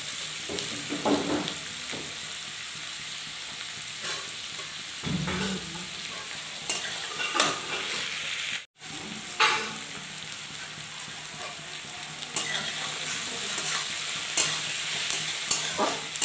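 Sliced onions sizzling in hot oil in a steel kadai as they fry toward golden brown, with a steel spatula scraping and clinking against the pan now and then as they are stirred. The sound drops out for a moment about halfway through.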